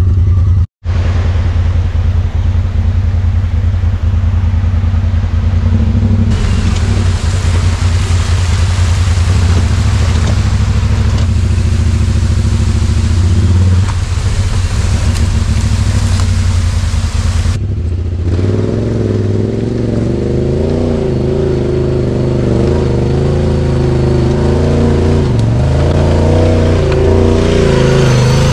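Honda Talon 1000 side-by-side's parallel-twin engine running as it drives the trail, with a brief dropout under a second in. A rushing noise lies over the engine from about six to eighteen seconds in, and in the last third the engine note rises and falls with the throttle.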